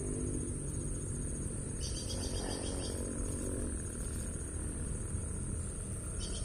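Insects chirping: a steady high-pitched trill, joined about two seconds in by a faster pulsing chirp that stops a little before four seconds.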